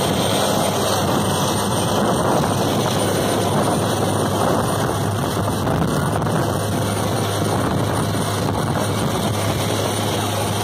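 Longtail boat engine running steadily at speed with a constant low drone, mixed with the rush of water spraying along the hull.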